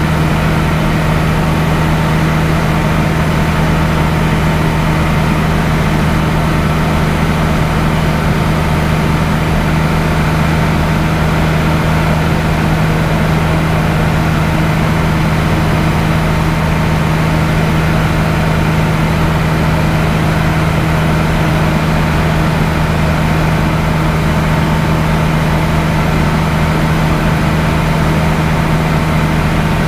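Light aircraft's piston engine and propeller droning steadily in cruise flight, heard from inside the cockpit: an unchanging low hum under a steady rush of noise.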